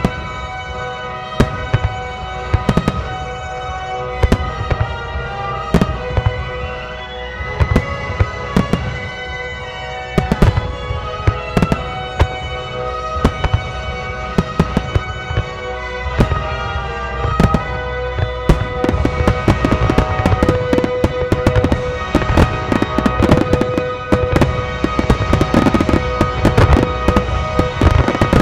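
Aerial firework shells bursting over music, the bursts cracking across a sustained tune. They come in scattered bangs at first, then much thicker and faster from about two-thirds of the way through, as a rapid barrage.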